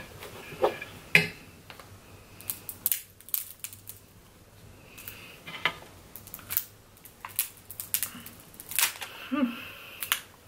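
Crab claw shell being cracked and broken open by hand: a string of sharp, irregular cracks and clicks.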